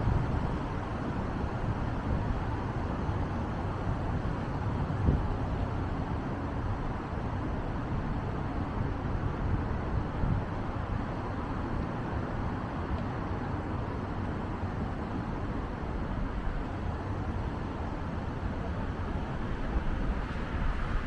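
Steady city road-traffic noise, a continuous rumble of passing vehicles, with a brief thump about five seconds in.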